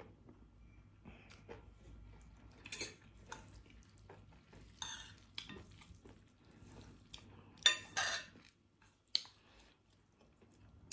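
Chopsticks and a metal fork stirring and tossing saucy instant noodles on a serving plate, with light scattered clicks and scrapes of the utensils against the plate and one louder scrape about eight seconds in.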